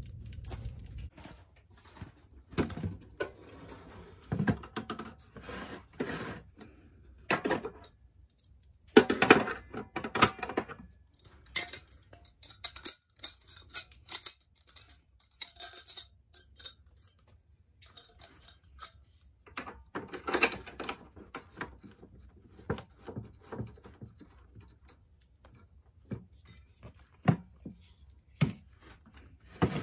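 Metal clicks, knocks and clinks from handling a portable propane camp stove and its small green propane cylinder and hose: scattered sharp knocks in clusters with quieter gaps between.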